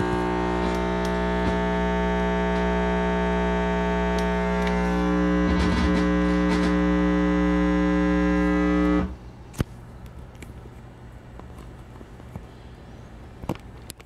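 Ground-loop buzz through the speakers: a steady 60-hertz hum with many overtones, caused by the adapter's ground lead being left connected. It cuts off abruptly about nine seconds in, followed by a few sharp clicks.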